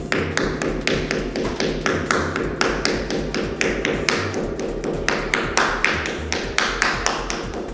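Rubber mallet tapping rapidly and repeatedly on a self-adhesive vinyl floor plank, about three to four blows a second, pressing the plank down so its adhesive bonds to the floor.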